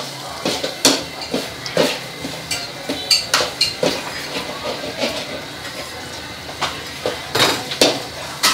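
Egg frying in hot oil in a nonstick pan: a steady sizzle broken by irregular sharp crackles and clicks.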